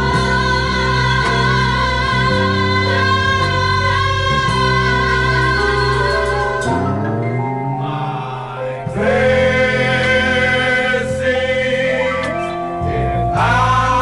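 Music: gospel-style choir singing with vibrato over a steady bass line. The bass drops out about seven seconds in, and the full music comes back about two seconds later.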